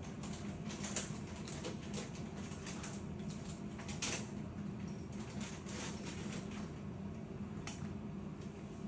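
Scattered light plastic clicks and taps as a baby handles the hanging mirror and rattle toys of a plastic play gym, over a steady low hum.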